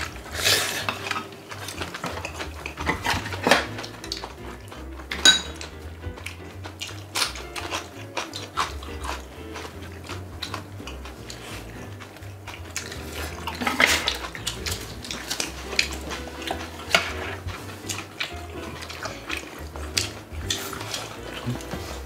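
Chopsticks and spoons clinking against porcelain bowls and a cooking pan during a meal: scattered light clicks, with one bright ringing strike about five seconds in.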